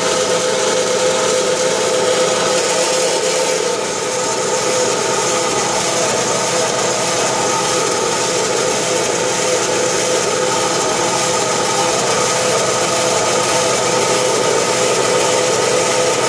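Prazi SD300 bench lathe running with its spindle at 1200 RPM: a steady machine hum and whine from the motor, two-belt drive and spindle.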